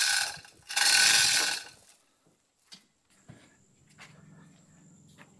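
Manual chain hoist worked by its hand chain: three long pulls of rattling, ratcheting chain running through the hoist, about a second each, the last ending about two seconds in. After that only a few faint clicks and a weak low hum.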